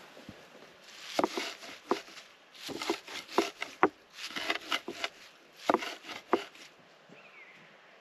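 Mezzaluna rocked by hand through fresh nettle leaves in a wooden bowl: an irregular run of sharp knocks of the blade on the wood, with leafy crunching between them. It starts about a second in and stops about a second before the end.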